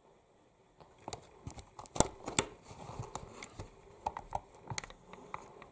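Model train rolling stock running close past, its wheels giving a string of irregular light clicks and rattles over the track, with two sharper knocks about two seconds in.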